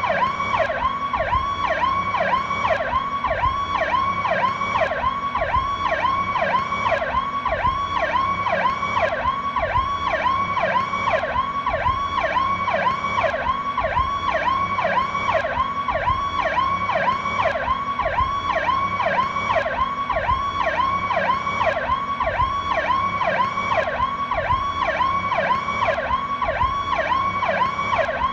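Police car's Powercall electronic siren sounding continuously in its standard tone: a rapid up-and-down wail repeating a few times a second without a break.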